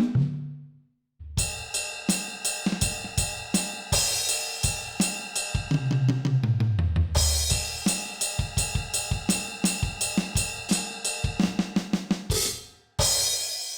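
Donner DED-200 electronic drum kit being played: after a brief pause, a steady beat of kick, snare and hi-hat, a fill down the toms falling in pitch about halfway, then a cymbal crash and the beat again, ending on a crash left to ring out.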